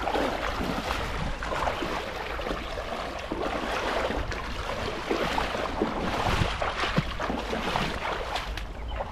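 Shallow river water splashing and rushing, with many small irregular splashes as a cast net is hauled in by hand.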